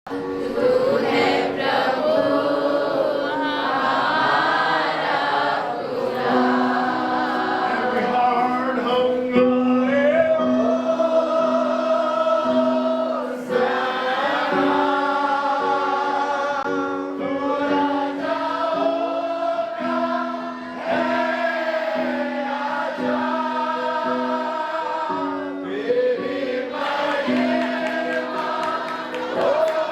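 Choir singing a slow song over held sustained notes.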